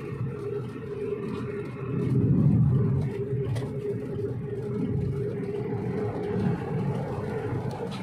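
An engine running: a steady low rumble with a steady hum, growing louder for a moment about two seconds in.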